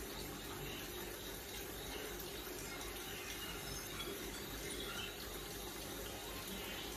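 Kitchen tap running steadily into a steel sink as dishes are rinsed by hand.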